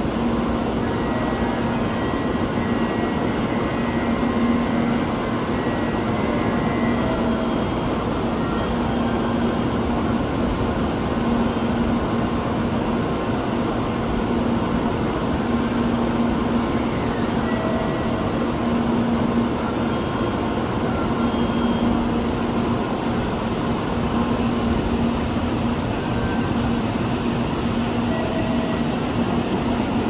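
Tokaido Shinkansen train standing at the platform, its onboard equipment running with a steady low hum under a constant wash of station noise.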